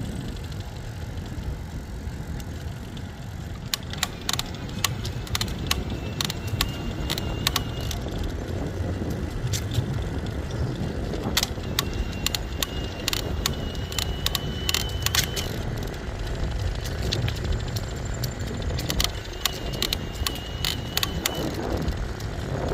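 Priority Current e-bike being ridden over steady road and wind noise, with repeated sharp creaks and clicks from the frame around the mid-drive motor: the creaking that comes from loose motor mount bolts. A faint high whine comes and goes three times.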